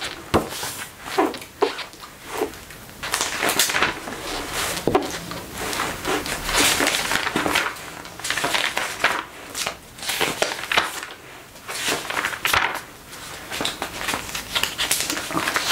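Magazine pages being turned and handled by hand: a run of irregular crisp paper swishes and rustles.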